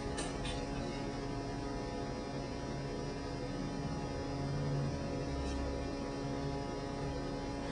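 Steady electrical hum with a low rumble underneath: mains hum.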